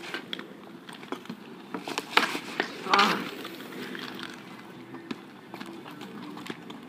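Roller hockey on an asphalt driveway: inline skate wheels rolling and scraping, with sharp clacks of a hockey stick shooting, the loudest about two to three seconds in.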